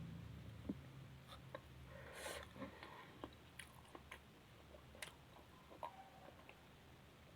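Faint chewing and mouth sounds of someone eating, with scattered small clicks.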